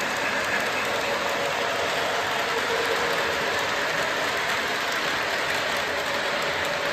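Several O-gauge electric model trains running around a layout: a steady whir of their motors and the rolling of metal wheels on metal three-rail track.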